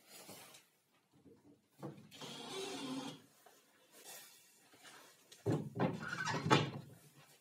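Scraping and a few sharp wooden knocks as a plywood panel on a table saw cabinet is handled and pulled open by hand. The loudest knocks come about five and a half to seven seconds in, after a shorter scraping rustle about two seconds in.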